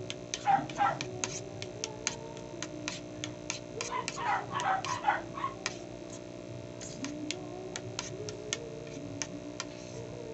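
Close-up eating sounds: sharp, fairly regular wet clicks of chewing, about three a second, over a steady low hum. Short whining calls break in twice, near the start and about four seconds in.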